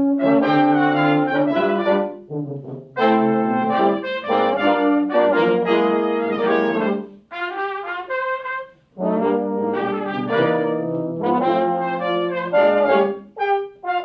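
Brass sextet with trumpets playing a piece in held chords, in phrases separated by short pauses.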